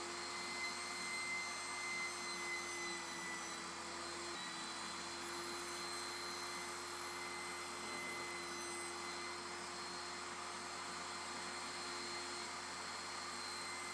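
Table saw running with a steady whine while a piece of rigid foam board is fed through the blade.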